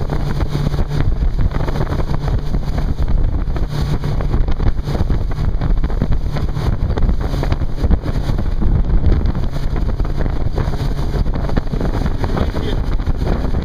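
Wind buffeting the microphone on a moving motorboat, over the steady drone of its engine and the rush of water.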